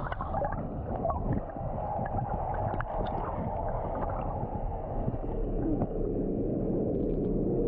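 Muffled underwater sound of a swimming pool: churning water and bubbles gurgling, with small pops and clicks, heard with the microphone submerged.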